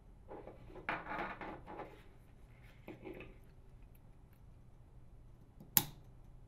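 Faint handling rustles of wires and a small plastic part against a sheet-metal bracket, then one sharp click near the end as the plastic light receptacle snaps into its socket in the bracket.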